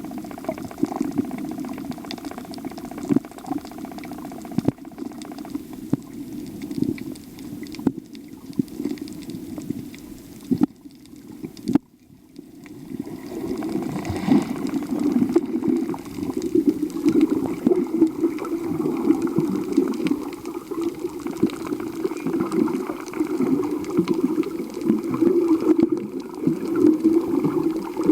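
Water sloshing and bubbling, heard muffled as if underwater during a snorkel dive, with scattered sharp clicks. It drops away briefly near the middle, then comes back stronger and more bubbly.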